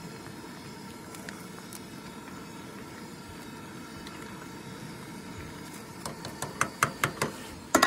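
Camp stove burner running under a pot of pasta at a rolling boil: a steady rushing hiss. About six seconds in comes a quick series of sharp metallic taps, a stirring utensil knocked against the pot.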